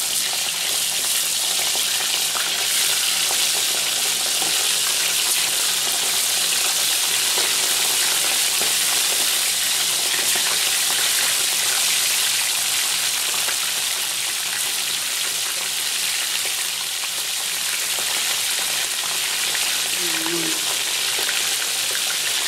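Panfish fillets deep-frying in about half an inch of hot vegetable oil in a 12-inch cast iron skillet: a loud, steady sizzle.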